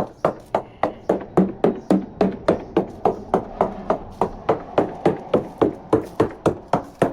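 A fiberglass sailboat hull being tapped with a sounding hammer in quick, even knocks, about three a second, each with a short hollow ring. This is percussion sounding during a marine survey, listening for voids, delamination or what lies behind the hull.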